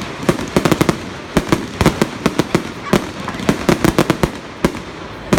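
Fireworks going off in rapid, irregular volleys of sharp cracks and bangs, often several a second in quick clusters.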